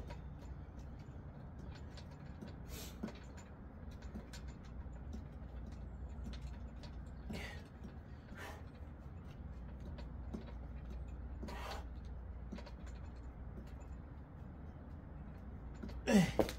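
Metal dip station creaking and clicking under a man's weight as he works through a set of dips. The frame sits unlevel on a small rock and shakes. Sharp breaths come every few seconds, and a loud grunt that drops in pitch comes near the end.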